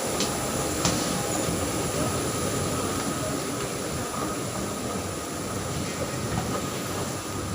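Steady rumble and hiss of a moving vehicle heard from inside, with a faint steady whine and a few light clicks.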